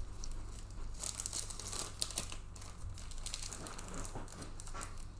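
Plastic card packaging crinkling as it is handled, in irregular rustling bursts that are busiest about one to three seconds in, over a steady low hum.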